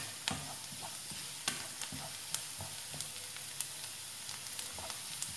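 Chopped onions frying in oil in a non-stick pan: a steady sizzle, with a wooden spatula scraping and knocking against the pan now and then as they are stirred.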